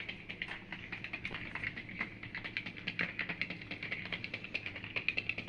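Battery-powered toy hamster in a plastic ball rolling across the floor: rapid, irregular clicking and rattling over a faint steady hum.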